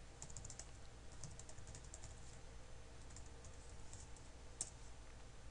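Computer keyboard keys tapping faintly in quick runs as login credentials are typed, with one sharper click a little over four and a half seconds in. A low steady hum lies underneath.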